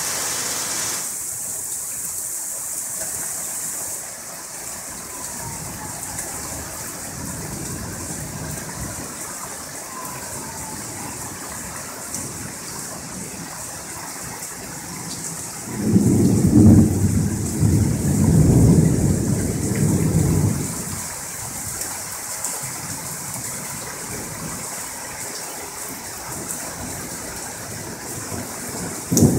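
Steady rain falling, with a long roll of thunder about halfway through that swells several times over some five seconds and is the loudest sound; another peal of thunder begins right at the end.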